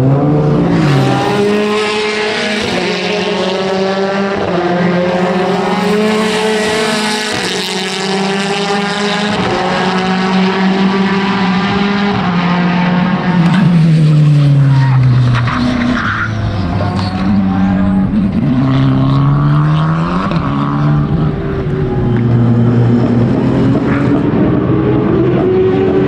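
Sports-prototype race car engines at high revs, several cars passing in turn. The pitch drops in long glides as the cars brake and change down, then climbs again as they accelerate.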